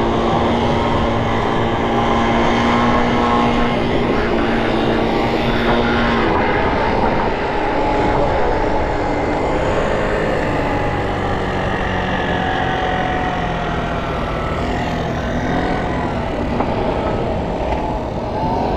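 City street traffic: motor vehicles running close by, with a steady low engine tone that holds for about the first six seconds and then fades.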